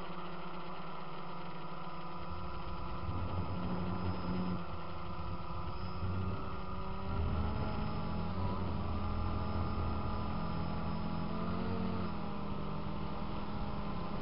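DJI Phantom quadcopter's motors and propellers humming steadily, picked up close by the aircraft's own camera, the pitch wavering and shifting several times as the drone manoeuvres.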